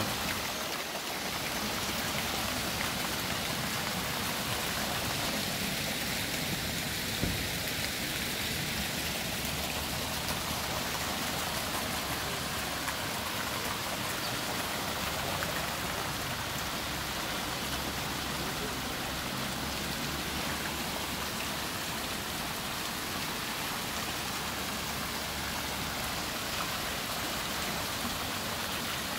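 Fountain water splashing steadily from many small jets into its wide stone basin.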